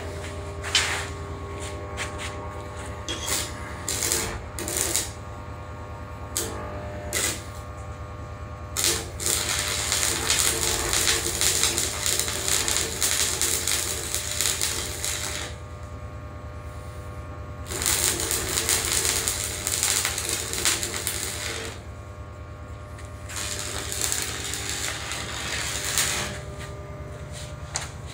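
Stick (arc) welding with a flux-coated electrode. There are several brief arc strikes in the first few seconds, then three runs of crackling arc of a few seconds each, with a steady low hum underneath.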